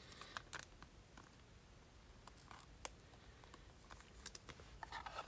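Near silence: room tone with faint scattered clicks and rustles, a little busier near the end.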